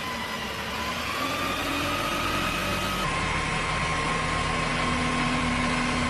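A motor running steadily with a whine that dips and rises in pitch, then switches abruptly to a steadier whine about three seconds in.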